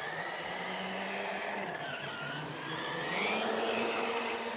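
Traxxas Sledge RC monster truck driving on concrete: the brushless electric motor's whine rising and falling with the throttle over the hiss of the tyres.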